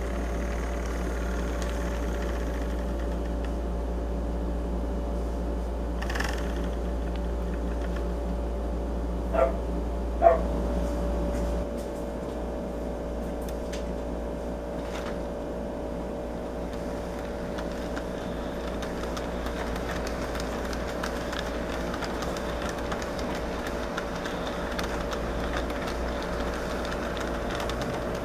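Model trains running on the layout: a steady whir of small electric motors and wheels on the track over a low hum. Two short sharp sounds come about nine and ten seconds in, and the low hum drops away soon after.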